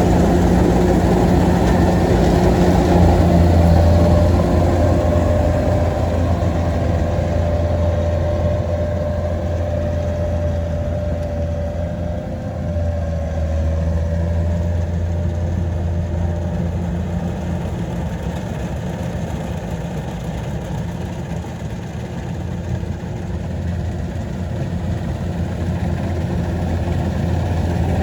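Kubota DC-93 combine harvester's engine running steadily with a deep, even hum, easing slightly in the middle and picking up again near the end.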